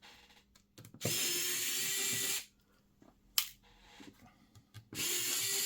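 Electric precision screwdriver running twice, about a second and a half each time, backing out the screen's mounting screws, with a few light clicks between runs.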